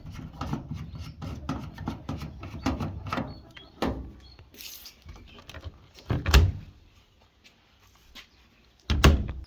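Irregular knocking and clattering of handled objects, with two heavy thumps about six and nine seconds in.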